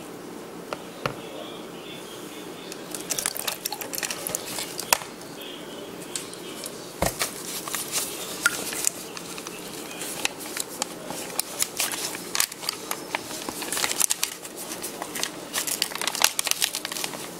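Thin plastic bag crinkling and crackling as gloved hands handle it, with a dull knock about seven seconds in.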